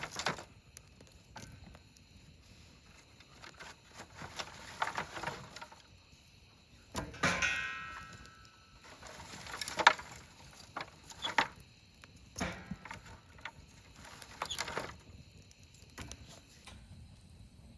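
Wood fire burning in a Solo Stove Yukon fire pit, with irregular crackles and knocks and one clank about seven seconds in that rings briefly.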